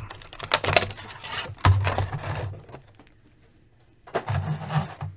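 A clear plastic blister tray being handled and slid out of a cardboard toy package: irregular crinkling and scraping of thin plastic against card, a pause of about a second, then more plastic handling with low knocks as the tray is set down on the table.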